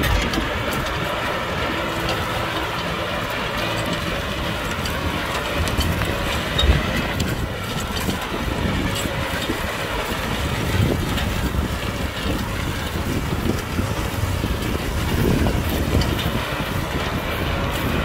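Kubota tractor's diesel engine running steadily, as when pulling a plow. There is a single brief thump about six and a half seconds in.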